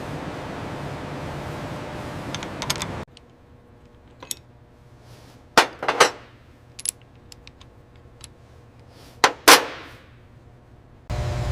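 Steady machinery hum that cuts off abruptly about three seconds in. Then several sharp separate metallic knocks and clinks, like tools striking metal parts, each with a short ring, the loudest pair about nine and a half seconds in. A loud steady hum cuts back in just before the end.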